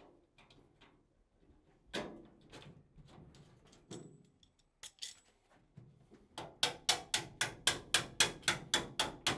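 Hammer striking galvanized sheet-metal ductwork, bending a drive cleat's edge down to lock two duct sections together. A few scattered light metal knocks come first, then about six seconds in a quick, even run of strikes at about four a second.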